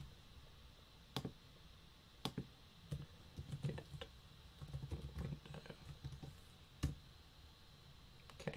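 Typing on a computer keyboard: faint, irregular runs of keystrokes with a few sharper single clicks.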